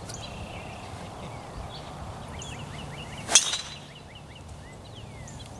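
Golf tee shot: a single sharp crack of the club striking the ball about three seconds in, with small birds chirping in the background.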